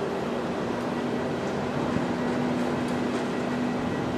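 Boeing 737-800's CFM56-7B turbofan engines running at taxi idle as the airliner rolls along the taxiway: a steady rush of noise with a steady low hum.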